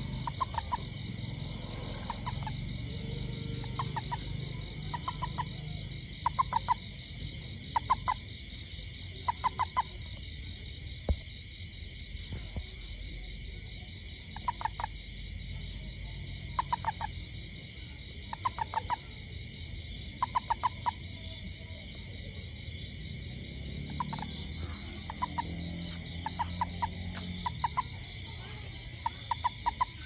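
A toad held in the hand giving bursts of short chirping croaks, three to five quick pulses per burst, repeated every second or two with a pause or two between. These are the kind of release call a toad makes when grasped. A steady high insect chorus runs underneath.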